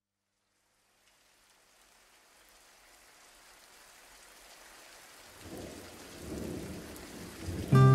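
A hiss of rain fading in and growing steadily, with low rolls of thunder swelling in the second half, then strummed guitar music starting abruptly just before the end.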